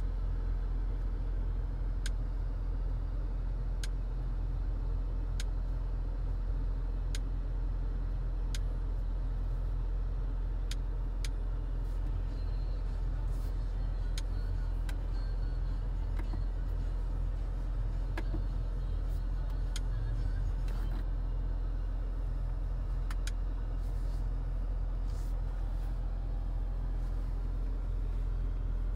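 Audi SQ5 Sportback's turbocharged V6 running steadily without revving: a low, even engine and exhaust rumble, with faint short clicks every second or two.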